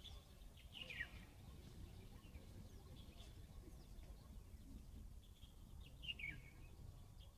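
Faint birds calling over a low background rumble: two short falling calls, one about a second in and one near the end, with scattered fainter chirps in between.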